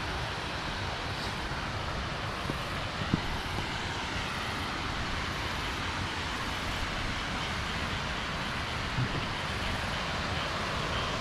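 Steady rushing noise outdoors, with a faint knock about three seconds in and another near nine seconds.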